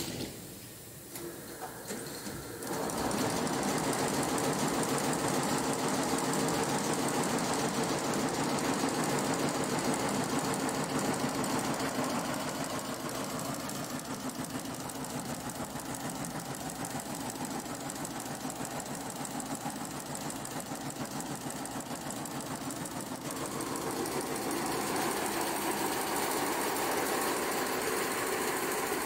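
Shengming multi-head sequin embroidery machine running, its needles stitching in a fast, even, rattling rhythm. It is quieter for the first couple of seconds and then louder and steady from about three seconds in.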